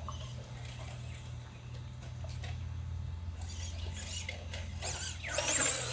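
Tamiya Midnight Pumpkin RC truck's electric motor whining as the throttle is blipped, rising and falling in pitch from about three seconds in and getting louder near the end.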